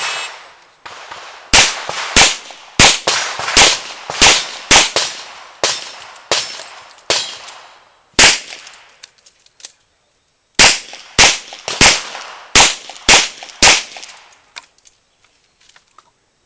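Revolver shots fired in two quick strings: about ten shots a half-second or so apart, a pause of about two seconds, then about seven more in quicker succession. Each shot cracks sharply and dies away in a short echo.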